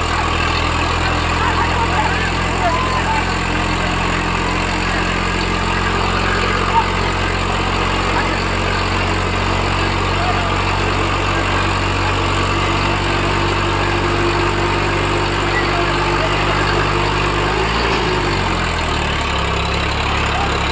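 Swaraj tractor's diesel engine running steadily at low speed while pulling a train of loaded trolleys. About eighteen seconds in, its note briefly dips and then recovers.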